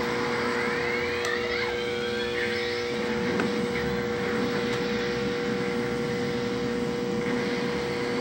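Aquarium pump equipment running: a steady mechanical hum with a constant whining tone over a hiss of moving air and water.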